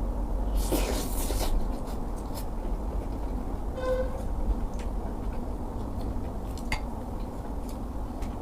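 Close-miked eating sounds: a short noisy crunch or rustle about a second in, a brief squeak-like tone near the middle, and a few light clicks, over a steady low rumble.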